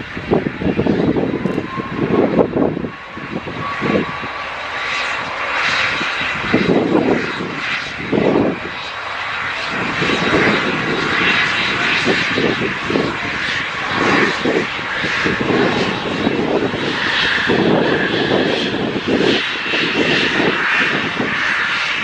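Boeing 737 MAX's CFM LEAP-1B turbofans running at takeoff power during the takeoff roll, a steady jet noise with a faint high whine. Wind gusts buffet the microphone throughout, in irregular surges.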